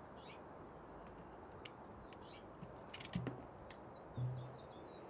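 Light metallic clicks and taps of a Torx driver, screws and parts being handled while the rifle's top rail is taken off, clustered a little past the middle, then a short low thud. Faint bird chirps in the background.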